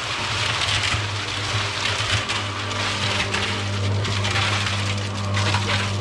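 Electric cement mixer running with its drum tipped, wet concrete sliding out of it and pouring into a hole with a steady gritty rush, over the mixer motor's constant hum.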